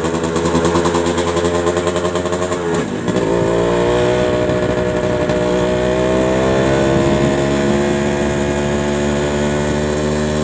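A Modenas Dinamik 120 motorcycle being ridden, its engine running under throttle. About three seconds in the engine note drops sharply as it eases off, then it pulls again with a steadily rising note.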